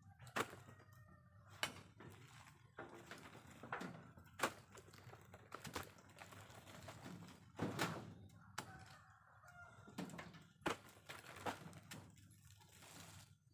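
A series of sharp, irregular knocks, about one a second, with a few faint brief calls in between.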